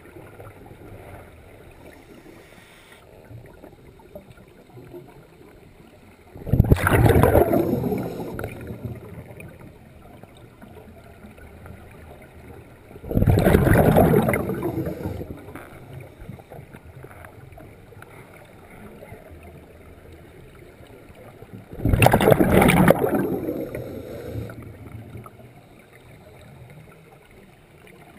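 Scuba diver's exhaled bubbles rushing out of the regulator exhaust underwater, three breaths several seconds apart, each starting suddenly and fading over about two seconds, with a low steady hiss between them.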